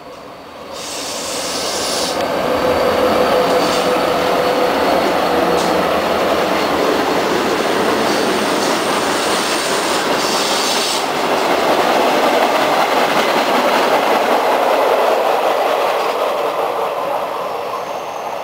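Norfolk Southern freight train passing: the locomotive and then covered hopper cars rolling over the rails with a steady, loud rumble of wheels on track. Brief high wheel squeals come about a second in and again around ten seconds in. The rumble builds quickly at the start and eases toward the end.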